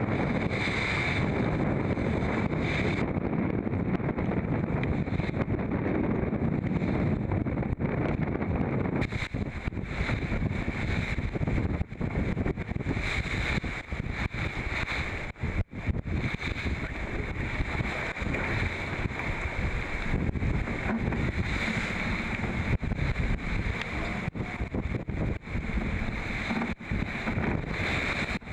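Wind blasting across the microphone and water rushing past the hull of an IMOCA 60 racing yacht sailing fast in rough seas, buffeting in gusts, with a steady high whine underneath.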